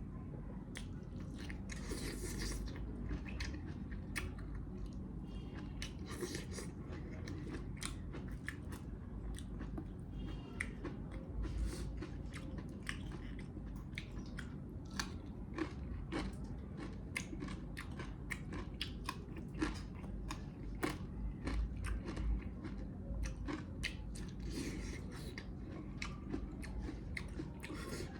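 A person chewing and biting mutton leg pieces close to the microphone, with many short mouth clicks and smacks throughout over a steady low hum.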